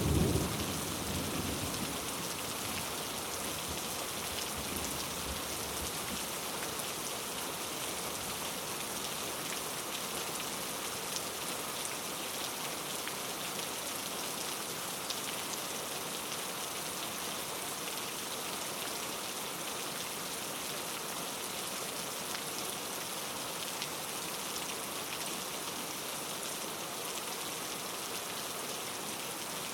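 Steady rain falling on a surface, an even hiss of many drops. A low rumble of thunder fades out in the first couple of seconds.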